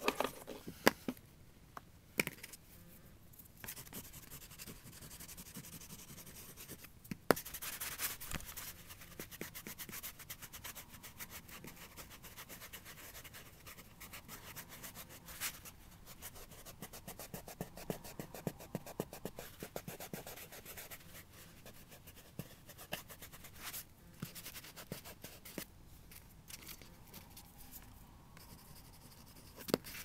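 Pastel stick scratching across paper in short strokes, then fingertips rubbing the pastel into the paper to blend it. A few sharp clicks stand out above the steady scratching.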